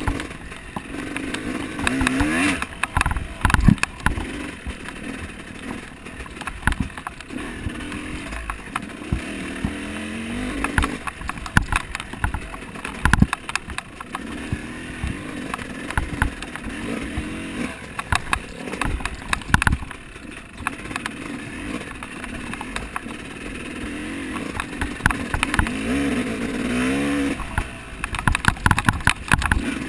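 Off-road dirt bike engine revving up and falling back again and again under race riding, with frequent sharp knocks and rattles from the bike pounding over rough ground.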